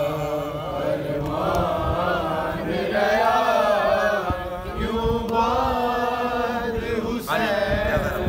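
Group of men chanting a noha, a Shia lament, in unison, with repeated dull thuds of matam (chest-beating) underneath.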